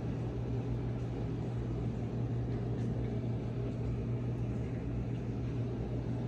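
A steady low machine hum, unchanging throughout, with a constant low tone.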